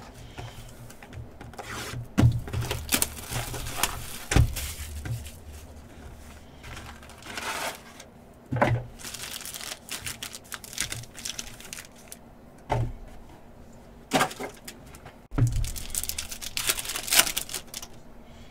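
Foil trading-card pack wrappers crinkling and tearing, with cards being handled and tapped against each other, in irregular sharp crackles and rustles.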